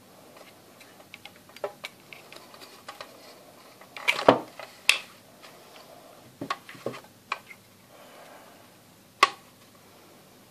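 Irregular clicks and knocks from a speaker's circuit board, with its transformer and metal heatsink, being handled and turned over in the hands. The loudest knocks come in a cluster partway through, with another sharp click near the end.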